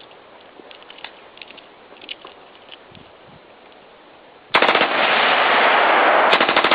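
AR-15 rifle in .223 fired in a fast, unbroken string that starts suddenly about four and a half seconds in, after a few faint clicks. It is bump-fired, with a finger hooked in the belt loop, which makes the semi-automatic rifle fire almost like a machine gun.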